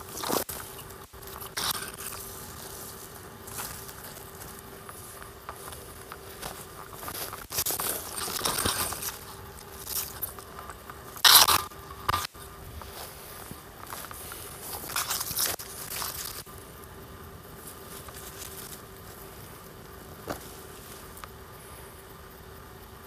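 Footsteps crunching and rustling through dry fallen leaves and twigs, with brushing against undergrowth, in irregular bursts; the loudest crunch comes about 11 seconds in, and it goes quieter for the last several seconds.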